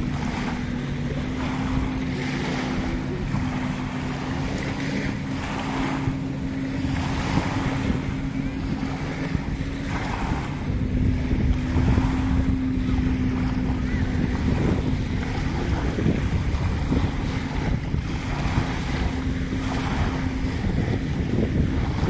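Small waves washing onto a sandy beach every couple of seconds, with wind buffeting the microphone and a steady low hum underneath.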